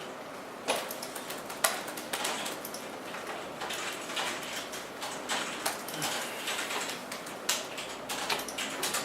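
Computer keyboard typing: irregular key clicks starting just under a second in, with a few louder strokes among them.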